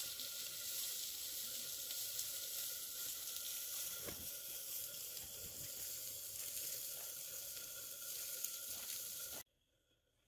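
A steady hiss with a faint high tone running through it, cutting off suddenly near the end.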